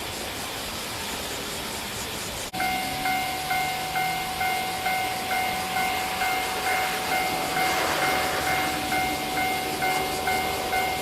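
A steady rushing noise, then, about two and a half seconds in, an abrupt change to a Japanese railway level-crossing alarm ringing, its electronic ding repeating about twice a second over a steady tone.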